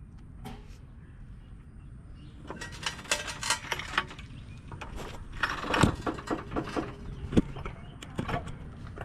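Irregular clicks and metallic rattles of a floor jack being let down under a car.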